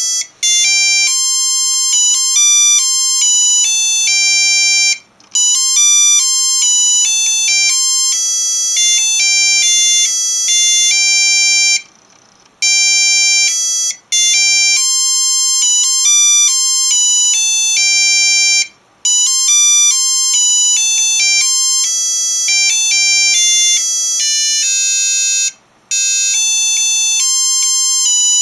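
An Arduino-driven Christmas ornament board playing an RTTTL ringtone melody. It is a bright, buzzy electronic tone, one note at a time, stepping through a tune with brief breaks between phrases.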